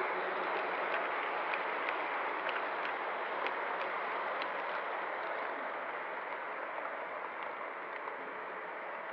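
O-scale model train running on three-rail track, heard from a camera riding on the train: a steady rolling hiss of wheels and gearing with scattered clicks from the wheels on the rails. It eases off a little in the second half.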